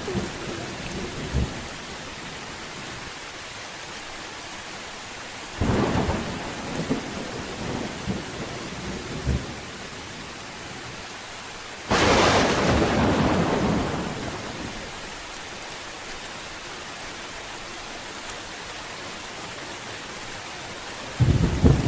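Steady rain hissing, with thunder: a rumble about six seconds in, a loud clap about halfway through that rolls off over a few seconds, and another rumble starting near the end.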